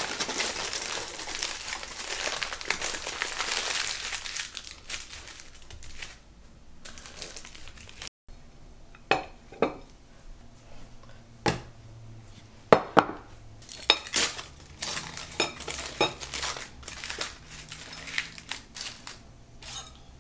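Kitchen prep sounds: several seconds of continuous rustling noise, then, after a short break, scattered sharp clinks and taps of utensils against dishes.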